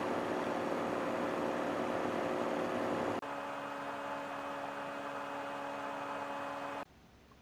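Heat-powered stove fans spinning, a steady hum over a hiss of moving air. The hum shifts to a lower pitch about three seconds in, and the sound drops away almost to nothing near the end.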